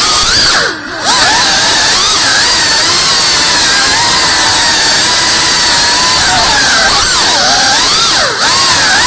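Small FPV quadcopter's brushless motors and propellers whining, the pitch swooping up and down constantly with the throttle. The sound drops briefly twice, about a second in and near the end, its pitch diving just before each drop.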